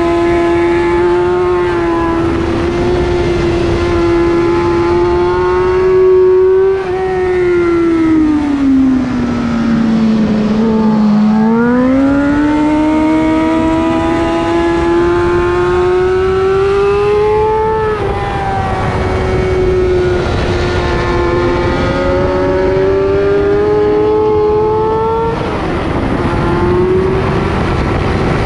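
Sport motorcycle engine running hard on a racetrack. It holds steady high revs, then falls in pitch as the bike slows about seven seconds in, and climbs again under acceleration, with a sudden drop at each upshift, about halfway and again near the end.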